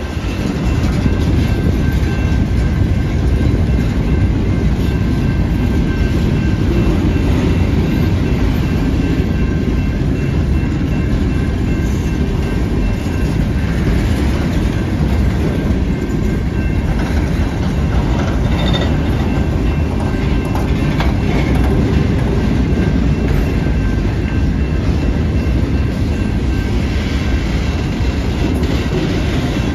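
Freight train of boxcars rolling steadily past, with a loud, continuous rumble of steel wheels on the rails.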